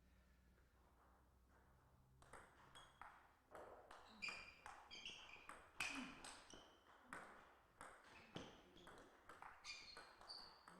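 Table tennis ball struck back and forth in a rally, with sharp ticks of the ball on bats and table about twice a second, starting about two seconds in.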